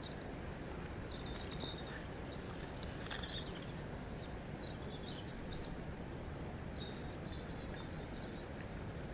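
Steady flowing water, with small birds chirping and whistling over it in short, scattered calls.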